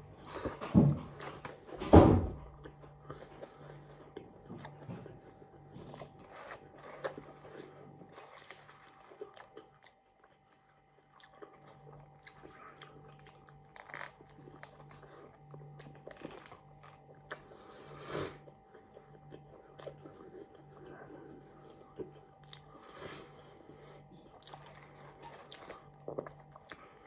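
Close-up biting and chewing of a burger, with the paper wrapper crinkling in the hands. Two louder sounds stand out about one and two seconds in.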